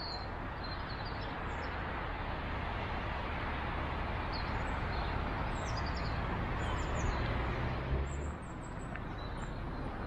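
Steady rushing outdoor noise with a low rumble that cuts off suddenly about eight seconds in, and birds chirping now and then.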